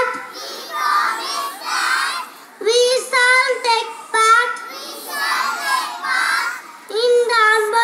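A crowd of schoolchildren recite the sports oath in unison, phrase by phrase. Between their group responses, a single high child's voice calls out each next line for them to repeat.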